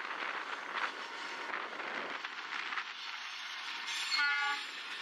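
Train of NSW 49 class diesel locomotives and grain hopper wagons rolling past, with wind buffeting the microphone. About four seconds in, a short horn blast of about half a second sounds.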